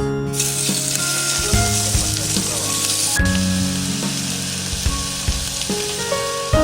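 Food frying and sizzling: a hiss that starts about half a second in and drops sharply to a softer sizzle about halfway through. Background music plays alongside.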